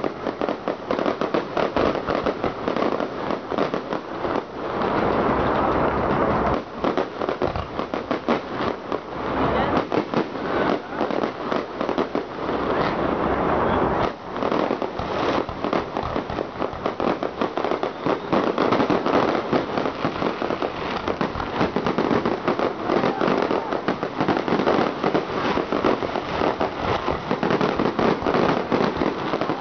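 Aerial fireworks display: shells bursting in a rapid, near-continuous run of bangs and crackling, with hardly a pause.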